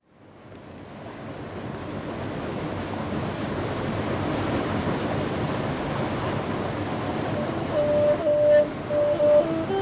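Steady rush of water from a small waterfall and rocky hill river, fading in from silence over the first couple of seconds. A few held musical notes come in about eight seconds in.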